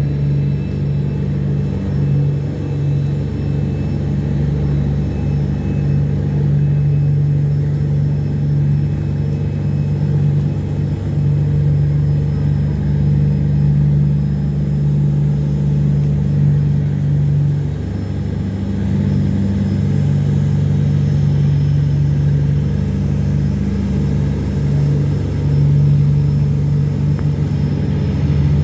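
Tugboat engines running steadily under load as they tow cargo barges upstream against a strong current: a continuous low engine drone.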